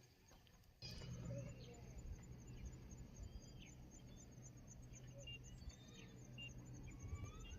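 Faint outdoor ambience beginning about a second in: an insect, cricket-like, chirping in a fast even pulse, a few faint bird chirps, and a low steady hum underneath.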